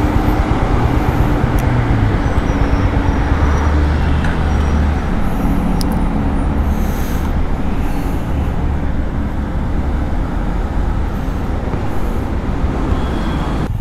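Road traffic: motor vehicle engines running close by, with a steady low engine hum.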